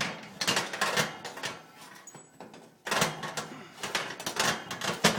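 Metal clattering and scraping of a cookie sheet and oven rack being handled, in two spells of rapid knocks with a quieter gap around the middle.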